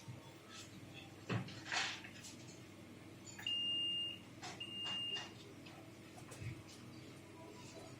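Two electronic beeps, each about half a second long at one steady high pitch, a second apart. A couple of short knocks come a few seconds before them.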